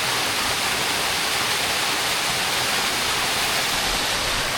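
Waterfall rushing: a steady, even wash of falling water with no breaks.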